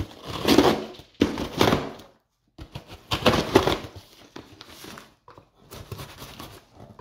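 Cardboard box being opened by hand: packing tape and cardboard flaps ripping and rustling in three loud bursts over the first four seconds, then quieter handling.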